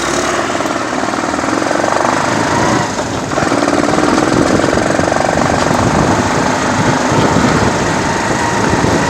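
Motorcycle engine running on the move, a steady rapid chugging that eases off briefly about three seconds in and then picks up again.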